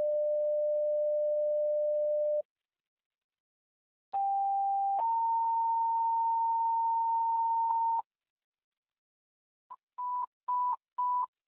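Fire dispatch radio paging tones. A steady single tone lasts a couple of seconds, then a two-tone page follows: a short lower tone steps up to a higher tone held for about three seconds. Near the end comes a string of short alert beeps, about two a second, that precede a dispatch.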